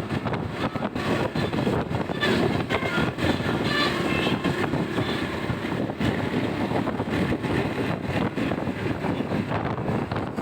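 Steady rumble of heavy road traffic: bus engine and tyre noise.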